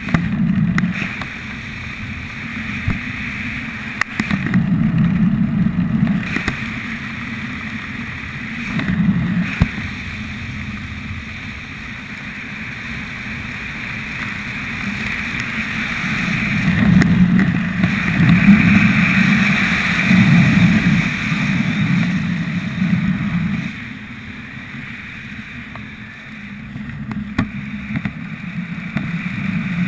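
Airflow rushing over a parachutist's helmet-camera microphone during a descent under canopy, a steady rush that swells louder around four to six seconds in and again from about sixteen to twenty-three seconds.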